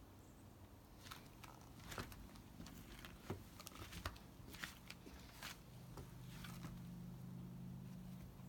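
Faint, scattered clicks and taps of a kitten's paws and claws on a stone-tile floor as it bats and pounces, about a dozen over a few seconds. A low steady hum rises about six seconds in.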